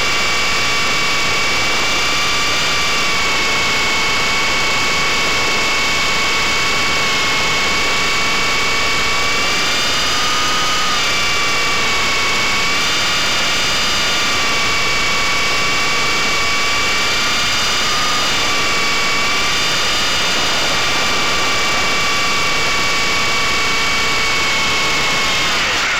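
Blade 120 SR micro RC helicopter in flight, heard from a camera mounted on it: a steady electric motor and gear whine over the rush of the rotor, rising and dipping slightly in pitch with the throttle. Near the end the whine falls in pitch and stops.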